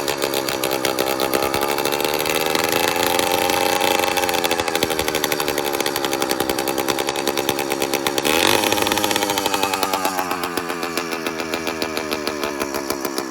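A 100cc two-stroke motorized bicycle engine running loud and rapid, its speed wandering up and down instead of holding a steady idle. It picks up briefly about eight seconds in, then settles lower. This unsteady idle is the RPM fluctuation the builder cannot yet explain.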